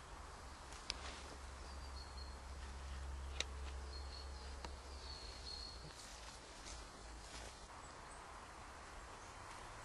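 Quiet woodland ambience: a steady low rumble under faint outdoor noise, with a bird's thin high calls a few times in the first half and two small clicks.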